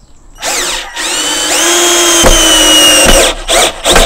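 Mitsushi 12-volt cordless drill driving a 2-inch gypsum screw into wood. A short blip of the trigger comes first, then the motor whines steadily for about two seconds as the screw goes in, its pitch sagging slightly under the load. A few short bursts near the end seat the screw.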